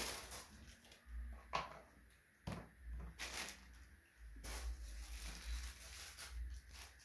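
Clear plastic wrapping rustling and crinkling and a cardboard box being handled, in several short irregular bursts.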